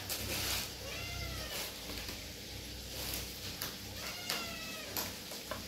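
A cat meowing twice, two drawn-out meows about three seconds apart, with a few faint clicks of a spoon against a plastic tub.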